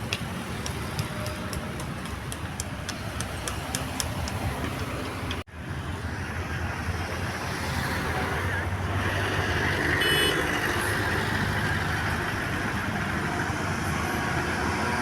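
Road traffic noise from passing vehicles, growing louder through the second half, with a brief high-pitched beep about ten seconds in.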